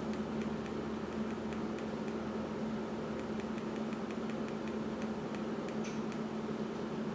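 Steady background hum with a constant low drone, over which the buttons and dial of a Panasonic Lumix S5IIX camera give faint small clicks as they are pressed and turned to set the time and date.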